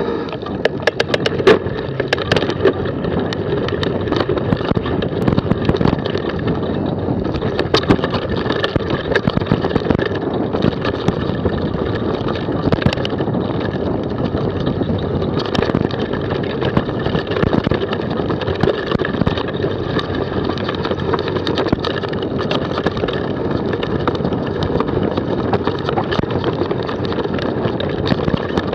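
Mountain bike descending a rocky forest trail at speed: a steady rush of wind on the action camera's microphone, continual rattling of the bike and many sharp knocks as the tyres strike stones, thickest in the first couple of seconds.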